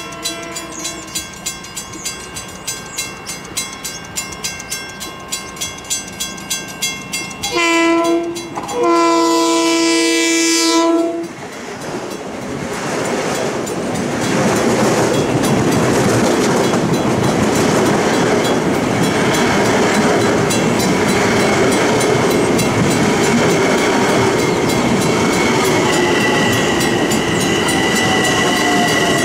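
Grade-crossing warning bells ringing about three times a second. About eight seconds in, a Long Island Rail Road M7 electric train sounds its horn, a short blast then a longer one. The train then passes close by with a loud steady rush of wheels and cars, and a high whine joins in about two-thirds of the way through.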